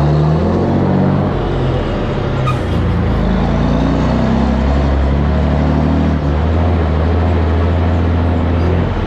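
Volvo N12 truck's straight-six diesel running through a loud twin exhaust, its pitch stepping up and down a few times and then holding steady, with a drop near the end.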